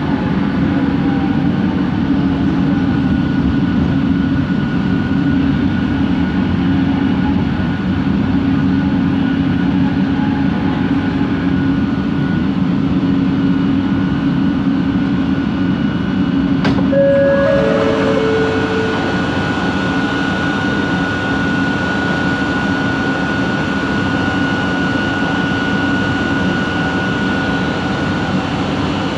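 Kelana Jaya Line light-rail train running, with a steady rumble and a motor hum; this is the unusual motor noise of the line's original trains. About two-thirds of the way in there is a sharp click, then two short tones, then a steady high whine for about ten seconds.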